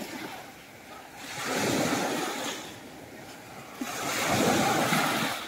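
Small waves washing up on the beach twice, each surge of surf swelling and fading over about a second and a half, the second coming about four seconds in.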